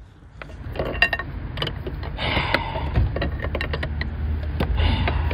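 Viscous cooling fan and fan clutch of a BMW M57 diesel being worked loose from its left-hand-threaded mount: irregular metal clicking and rattling over a low rumble.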